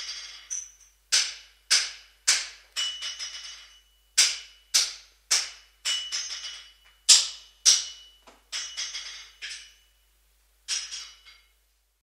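Blacksmith's hammer striking metal in a steady working rhythm, about two heavy blows a second with lighter bouncing taps between, each ringing briefly. The strikes stop for about a second near the end, then a last few blows.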